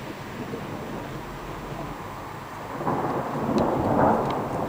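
Thunder rumbling over steady rain; the rumble swells about three seconds in, loudest around four seconds, then eases.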